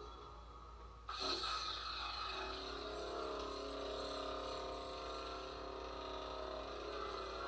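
Lightsaber sound board playing through the saber's small speaker: a sudden ignition about a second in, then a steady electric hum.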